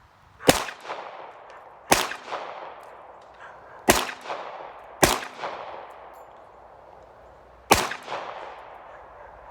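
Glock 21 .45 ACP pistol firing five shots at uneven intervals, each followed by a fading echo, with another shot right at the end.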